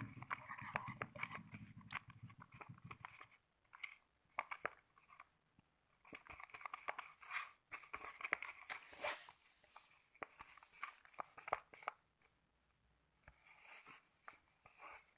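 Sticky slime mixture of white glue, foam and liquid soap being stirred as it starts to clump after drops of activator: irregular wet crackles and tearing sounds with short quiet gaps.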